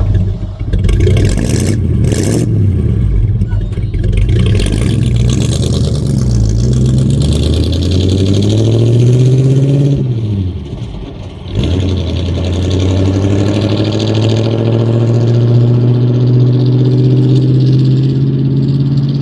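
1950 Ford F1 pickup's flathead V8 revving and pulling away, its pitch rising and falling. About ten seconds in the pitch drops sharply and the sound dips briefly for a gear change, then the engine climbs slowly and steadily in the next gear.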